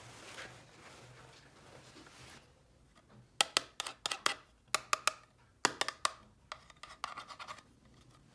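Hands handling small hard objects: a soft scraping rub, then from about three seconds in a series of sharp clicks and taps in quick clusters.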